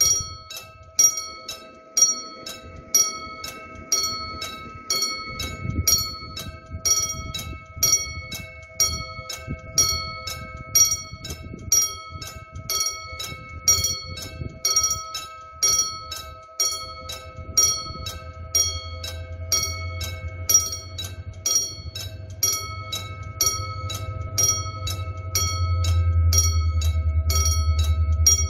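Electronic warning bell of a railroad level crossing ringing in a steady repeating rhythm. Under it, the low rumble of an approaching Mugunghwa-ho diesel train builds from a little past halfway and is loudest near the end.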